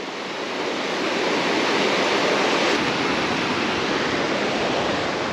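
Mençuna waterfall rushing: a steady, loud wash of falling water that swells slightly about a second in.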